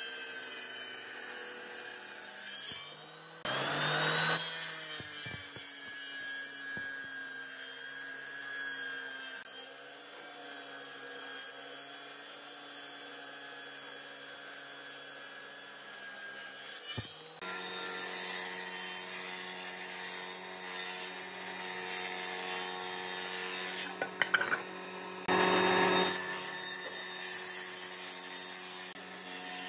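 Table saw running and ripping lengthwise through thick hardwood beams: a steady motor hum under the noise of the blade cutting. The cutting noise grows louder for a moment about 4 seconds in and again near the end.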